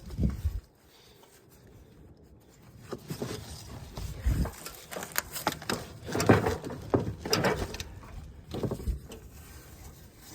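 Irregular clatter of hands working on a riding mower's deck linkage while pulling out the deck pins: short metal knocks, clicks and rustling that come in fits, after a quieter first few seconds.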